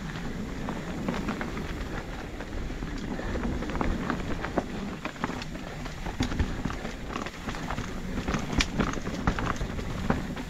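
Mountain bike riding down rocky singletrack: tyres rolling and crunching over stones and loose ground under a steady rumble, with the bike rattling and knocking sharply over rocks, the knocks coming thicker in the last few seconds.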